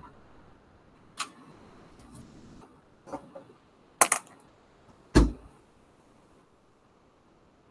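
A handful of short, sharp clicks and knocks, spread out rather than rhythmic: the loudest are a close pair about four seconds in and a heavier thump about a second later.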